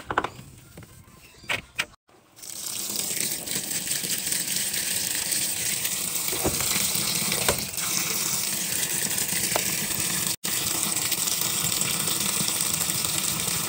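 A top-load washing machine filling: water gushes steadily from the dispenser spout onto laundry heaped with dry powder detergent. The pour starts about two seconds in and has one brief break about ten seconds in. Before it there are a few sharp taps and rustles of fingers pressing into the powder.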